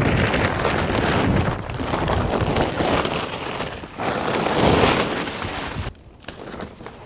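Plastic tarp rustling and crinkling as it is dragged off a machine, a rough, ragged noise that stops abruptly about six seconds in.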